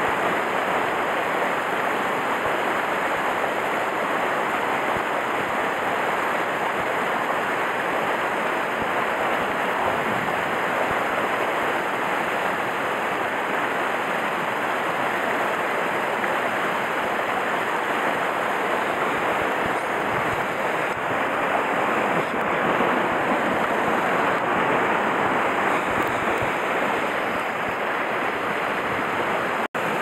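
A rocky mountain stream rushing over boulders in small whitewater cascades: a steady, even rush of water.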